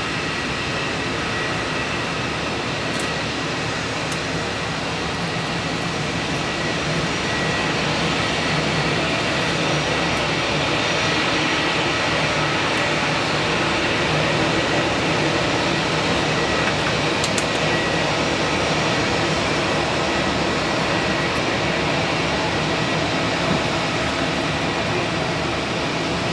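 Airbus A320-214's CFM56-5B turbofan engines running at taxi power: a steady rush of jet noise with a high, even whine, growing slightly louder partway through.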